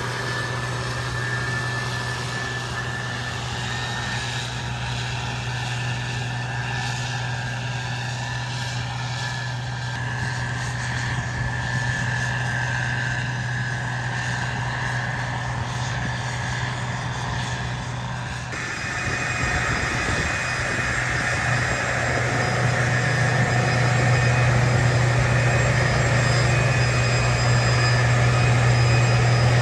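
Combine harvester running in the field: a steady low engine drone with whining machinery tones over it. About two-thirds of the way through the sound turns noisier, and it grows louder as the machine comes closer.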